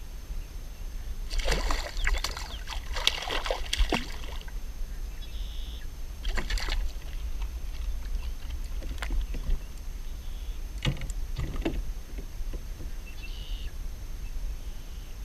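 Water splashing and sloshing beside a kayak as a small redfish is let go, about one to four seconds in, followed by scattered knocks and rustling from handling the fishing rod and pulling weed off the line, over a steady low rumble.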